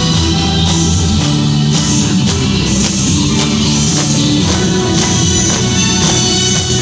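Loud music with guitar and a steady beat, played back over a bar's sound system.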